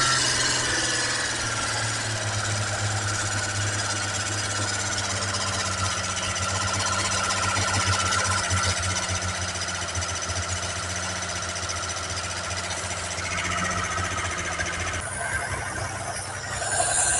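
Holden 202 inline-six engine running on a stand at a fast idle, with a steady mechanical clatter. The engine has a freshly fitted camshaft and new lifters, and is being brought back to idle at the carburettor. Its note changes about fifteen seconds in.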